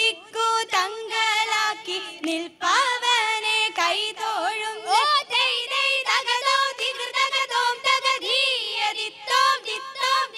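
A group of young women singing a Malayalam vanchippattu (Kerala boat song) together, several voices in unison with gliding ornaments on the held notes.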